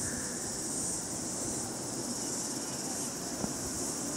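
Steady high-pitched chorus of insects, an unbroken shrill trill, over faint low background noise.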